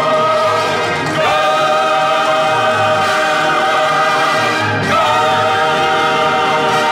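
Choir singing long held chords over the backing music, played from a 7-inch vinyl single on a turntable; the chord changes about a second in and again near five seconds.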